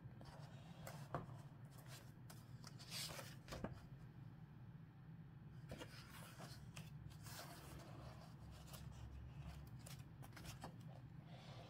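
Pages of a book being handled and turned by hand: faint paper rustles and flicks, the loudest about a second in and again around three seconds in, over a steady faint low hum.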